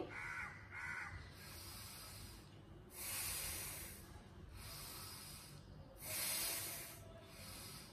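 A woman breathing deeply and audibly, several slow breaths in and out paced with a yoga wrist exercise. The breaths are loudest about three seconds in and again about six seconds in.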